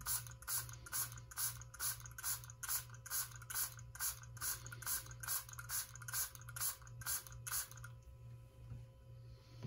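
Trigger spray bottle pumped over and over, about two squeezes a second, each stroke a short hiss of spray into a glass beaker. The spraying stops about eight seconds in.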